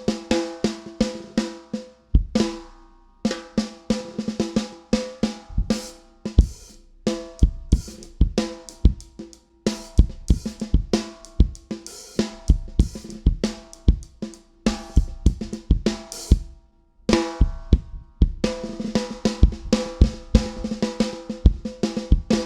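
A cheap Michael snare drum played in quick patterns and rolls. Strong sustained ringing overtones hang over every hit, the untamed 'harmonics' that make it sound horrible. There are deep kick-drum thumps at times, with a few short pauses between passages.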